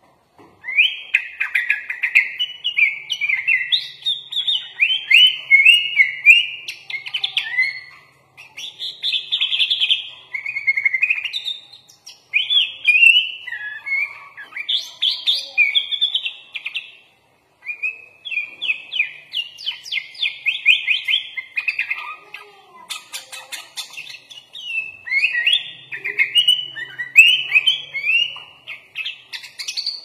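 Sooty-headed bulbul (kutilang) singing a rapid, varied song of chirps, slurs and trills in long phrases with several short pauses. It is a full 'isian' song, packed with phrases borrowed from other birds.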